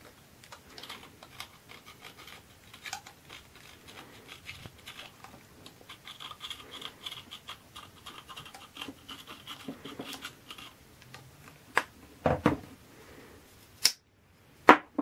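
Utility knife blade scraping the soldering tip clean of oxidation and old solder: a run of small, irregular scratching strokes, with a few sharper knocks near the end.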